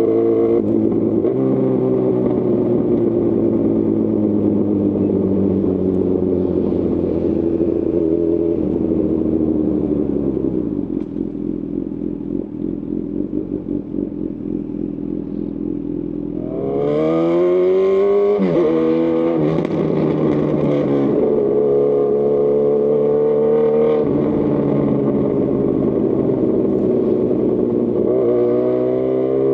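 Honda CB1000R's inline-four through a Lextek CP1 full exhaust, riding along with the engine note slowly falling. It goes quieter and rougher off the throttle, then about two-thirds in it revs up hard with a quick gear change and settles into a steady run, revving again near the end.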